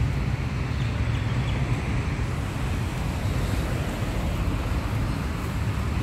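Steady outdoor street ambience: wind rumbling on the microphone over distant road traffic.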